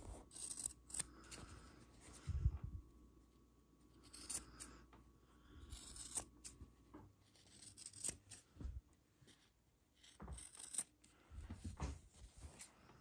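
Fabric scissors snipping through the seam allowance at the corners of a sewn, batting-lined fabric piece. The snips are short and crisp and come at irregular intervals.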